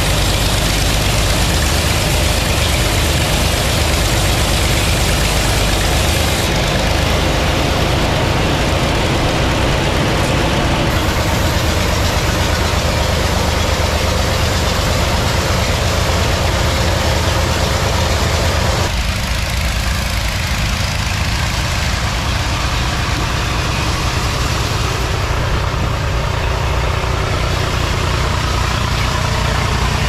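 Sawmill band saw machinery with its drive engine running, a loud, steady low drone. About two-thirds of the way in, part of the sound drops away and the drone carries on a little thinner.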